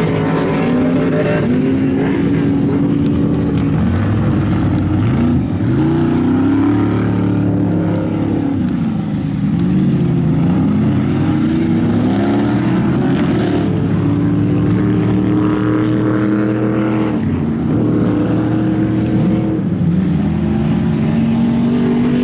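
Ultra4 off-road racing buggy's engine revving hard, its pitch climbing and dropping again and again as the throttle is worked over the jumps of a dirt course.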